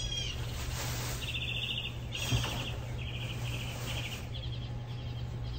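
A small bird singing a string of short, fast trills, one after another, with a chirping note at the start, over a steady low hum. A single soft thump about two seconds in, as the chair cushions are handled.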